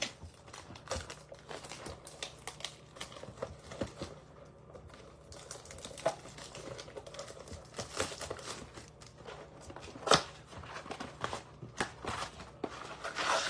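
Baseball card packs and their cardboard blaster box being handled and opened: wrappers crinkling and tearing among a steady run of small irregular clicks and rustles, with one sharper snap about ten seconds in.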